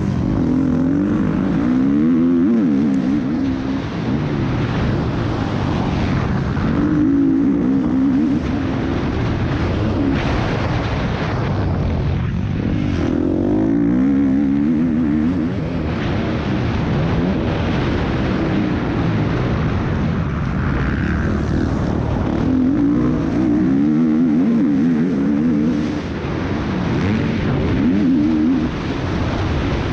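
Motocross bike engine revving up and dropping back over and over as the rider accelerates, shifts and brakes through the corners, heard on board from the rider's helmet with wind rush.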